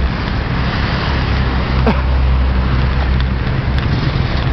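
Road traffic at a street corner: a steady low rumble of passing cars and motorcycles, with a brief sound falling in pitch about two seconds in.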